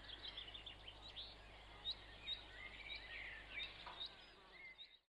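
Faint dawn birdsong: many short chirps and whistled notes from several birds over a steady low hum, fading out just before the end.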